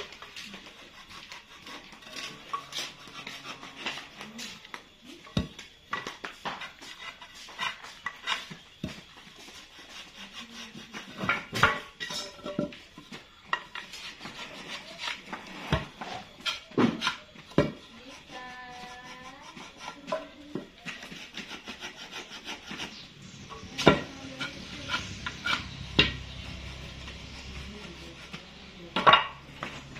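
Irregular clicks, taps and knocks of hand tools and wood being handled while cutting a hardwood joint, some sharper knocks standing out.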